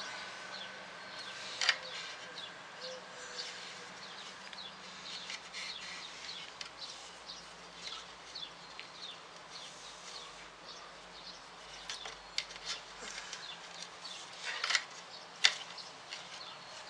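Quiet handling noises of yarn and wooden loom sticks as string is wound and tied at the edge of the warp on a small wooden Andean floor loom (awana): soft rustling with scattered light clicks and a few sharper knocks, one about two seconds in and two near the end.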